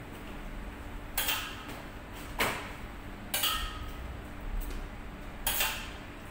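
Metal spoon clinking and scraping against a large steel pot and metal baking trays as meat filling is scooped out, four separate clinks, one ringing briefly. A faint steady hum runs underneath.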